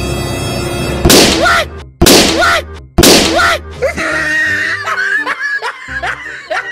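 A balloon bursting with a loud bang, played three times about a second apart as an edited repeat. Each bang carries the same short rising-then-falling tone. Laughter over music follows.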